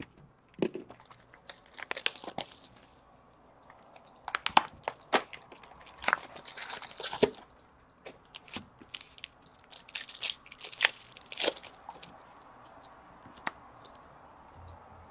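Shrink-wrapped box of trading cards being slit open with a box cutter and unpacked, the card packs pulled out and handled: irregular crinkling and tearing of plastic wrap with sharp clicks and taps, in clusters.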